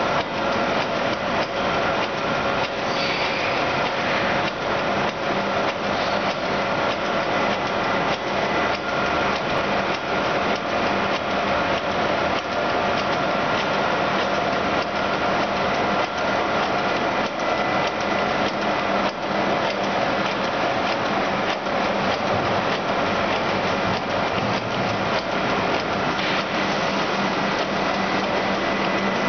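AAC block vertical cutting machine and its suction system running: a steady industrial machine hum with several held tones under a dense, continuous rattling clatter.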